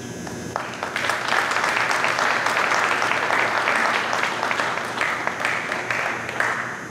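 Audience applauding, a dense patter of many hands clapping that starts about half a second in, swells, and tapers off near the end.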